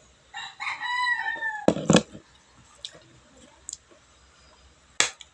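A rooster crowing once, a long call that sags slightly in pitch, followed by two sharp knocks as a bottle is set down on a table. Near the end, two sharp clinks of a spoon against a plate.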